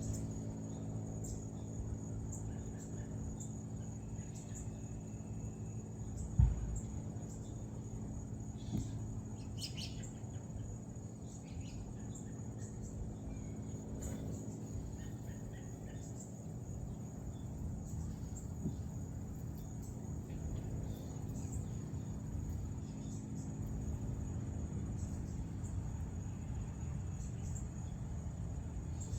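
Crickets chirping, a steady high trill with many short repeated chirps, over a low steady hum. A single sharp thump about six seconds in.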